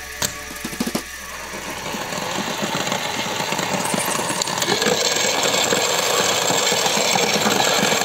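Toy front-loading washing machine: a couple of clicks as the porthole door is shut, then its small motor starts the drum and runs with a rattling whir that grows steadily louder as the spin builds up.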